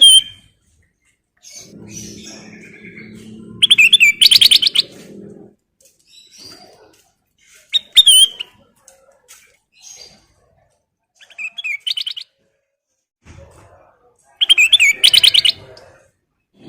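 Kutilang emas bulbul calling in short bursts of rapid chattering notes, about four phrases separated by pauses, with a low hum under the first phrase.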